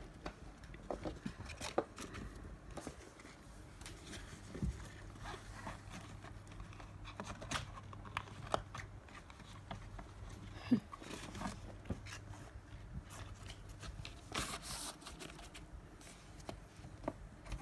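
Faint scattered rustles and small clicks, with a louder scratchy rustle about fifteen seconds in and a faint low hum through the middle stretch.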